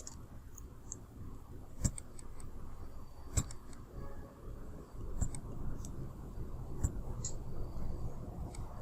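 Computer mouse clicking, six or so sharp, irregularly spaced clicks, over a low steady background hum.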